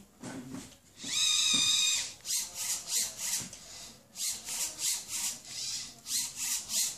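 Servo motors of a small kit-built humanoid robot whining as it moves its arms. A rising whine comes about a second in, then three runs of short whirs, about three a second.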